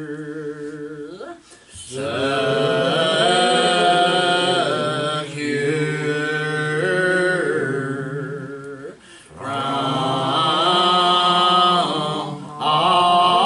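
Church congregation singing a hymn unaccompanied in a very slow, drawn-out style, each syllable held for several seconds, with short breaks between phrases.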